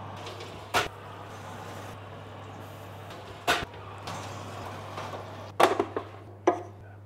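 Sharp metallic knocks and clatter of a metal roasting tray and its wire rack being handled at an open oven and set down on a wooden board: one knock about a second in, another midway, and a quick cluster near the end, over a steady low hum.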